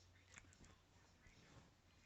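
Near silence: room tone with a faint click about half a second in.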